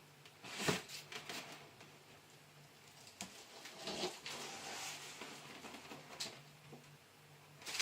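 Scattered rustles, clicks and knocks of packaging and parts being handled as a new miter saw is unboxed, with the sharpest knock about two-thirds of a second in, over a faint steady hum.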